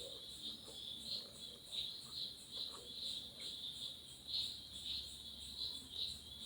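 Insects chirping: a steady high-pitched trill that pulses evenly, about two to three times a second.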